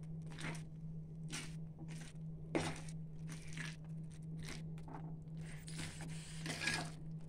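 Hand potato masher working through mashed boiled potatoes and chickpeas in a steel bowl: about a dozen irregular squishing, scraping strokes. A steady low hum runs underneath.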